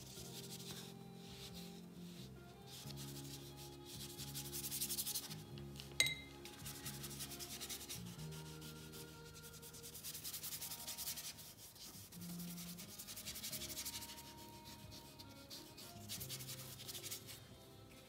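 Bristle paintbrush scrubbing acrylic paint onto paper in repeated strokes, a soft scratchy brushing that swells and fades with each pass. A single sharp tap about six seconds in.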